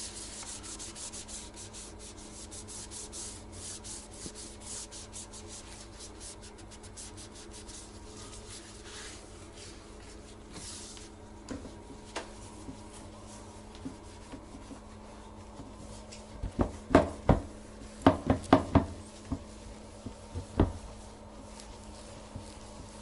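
A cloth rubbing over the plastic of a Washlet toilet-seat control panel and lid in quick, repeated strokes. About two-thirds of the way through comes a flurry of sharp knocks, the loudest sounds, then the wiping goes on.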